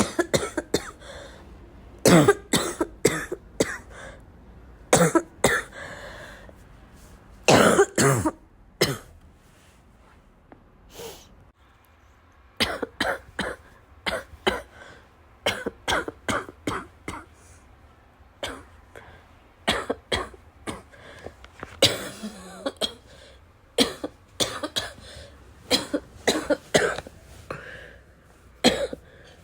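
A person's wet, chesty cough, coming in repeated fits of several coughs each with short pauses between them.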